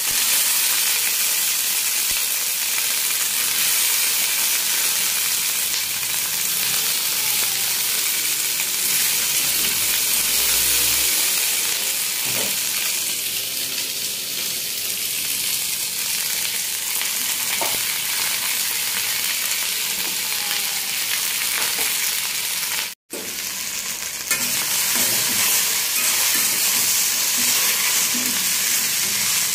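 Chopped okra sizzling in hot oil in an iron kadhai, a steady frying hiss, stirred now and then with a steel spatula. The sound drops out for an instant about two thirds of the way through.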